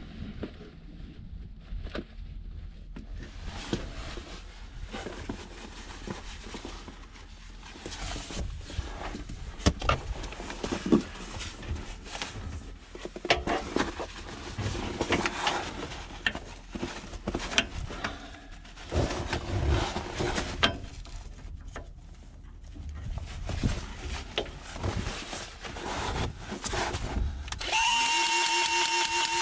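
Irregular clicks, knocks and rattles of hand work on the metal parts of a tractor snowblower during greasing and maintenance. Near the end a motor starts and runs with a steady, pulsing pitched tone.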